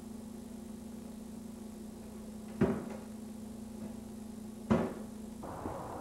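A glass-panelled storm door banging shut, two heavy knocks about two seconds apart over a steady low hum. Near the end the background changes to an outdoor hiss with the first light footsteps on a path.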